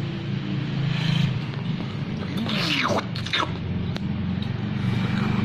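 Steady low engine hum of road traffic, with a few quick whistle-like glides falling in pitch about two and a half seconds in.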